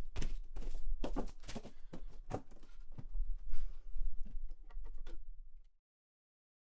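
A vinyl record being handled, drawn from its sleeve and set down on a Crosley suitcase turntable: a run of rustles, clicks and light knocks over a low hum. It all stops abruptly about five and a half seconds in.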